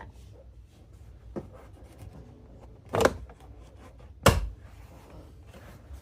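Plastic car interior trim panel being pried loose, giving three sharp snaps of its clips, the loudest about four seconds in; it sounds like plastic cracking, though nothing breaks.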